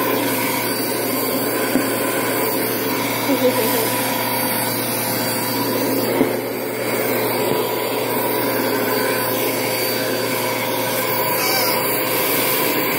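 A vacuum cleaner running steadily with a constant whine, with a few light knocks as it is pushed around.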